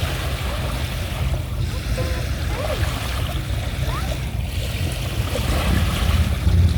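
Lakeshore ambience: a steady, uneven low rumble of wind on the microphone over a wash of lapping water.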